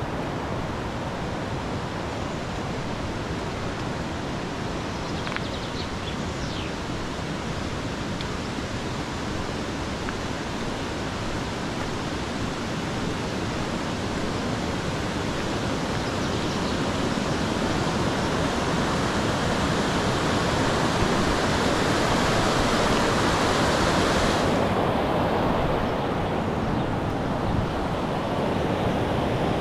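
Steady rushing water of a mountain stream. It grows louder over the second half, and the highest hiss drops away suddenly about three-quarters of the way in.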